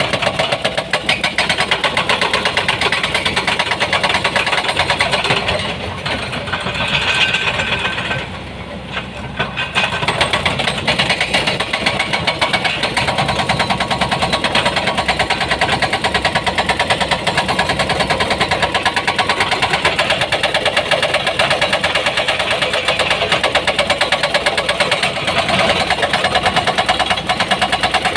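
Diesel engine of heavy earthmoving equipment running with a fast, even chugging beat, easing off briefly about eight seconds in before picking up again.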